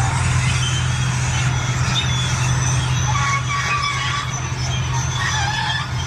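Bulldozer diesel engine running with a steady low drone, with short high wavering tones over it.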